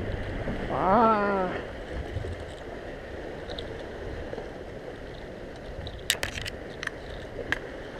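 Sea washing against concrete tetrapods with wind noise, steady throughout. About a second in comes a short vocal exclamation whose pitch rises then falls, and near the end a few sharp clicks and knocks.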